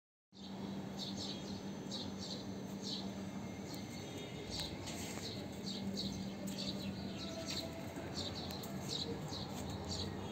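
Small birds chirping outdoors: many short, high, downward-sliding chirps coming in quick clusters, over a steady low hum and a haze of background noise. The sound starts abruptly about a third of a second in.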